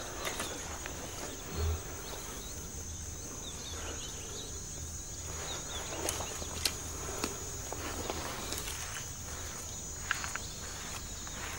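Insects trilling steadily at a high pitch, with scattered soft rustles and crackles of a dry-grass tinder bundle being handled and swung to blow an ember into flame.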